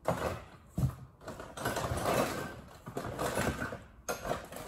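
Hands rummaging through a box of loose hand tools and packaging: irregular rustling and shuffling with a couple of sharp knocks about a second in.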